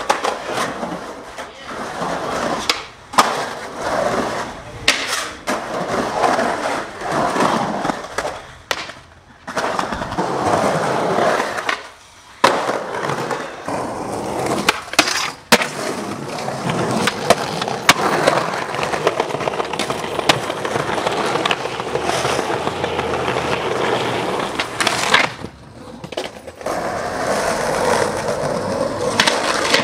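Skateboard wheels rolling on concrete, with repeated sharp clacks of the board popping, grinding and landing, and several abrupt changes where the footage cuts between tricks.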